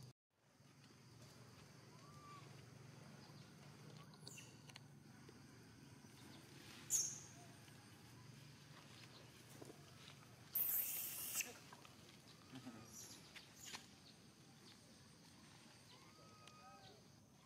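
Quiet outdoor background with a few faint, short calls from macaques. A sharp high-pitched sound comes about seven seconds in, and a harsher noisy burst lasting about a second just after ten seconds.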